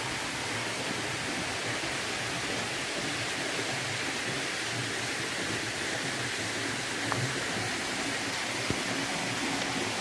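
Steady rushing hiss of a small waterfall, its water running down a rock face into a pool.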